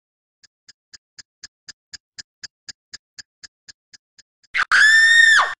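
Rapid ticking, about four ticks a second, growing louder and then fading, followed by a loud high held tone that starts suddenly about four and a half seconds in and slides down in pitch as it stops.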